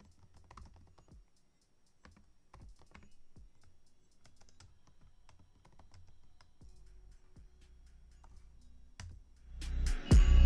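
Typing on a computer keyboard: scattered soft, irregular keystrokes. Near the end comes a sudden, much louder burst of sound.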